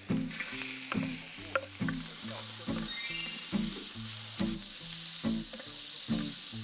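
Diced onion, carrot, zucchini and potato sizzling as they are stir-fried in oil in a large pot, stirred with a wooden spatula. The sizzle is a steady hiss.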